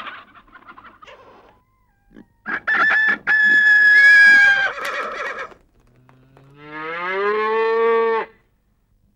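Farmyard animal calls: a short cackling call at the start, then a long rooster crow about two and a half seconds in, the loudest sound, and about six and a half seconds in a cow's moo that rises steadily in pitch.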